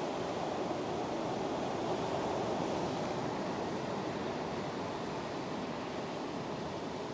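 Surf on an ocean beach: a steady rush of waves and shallow wash running over the sand.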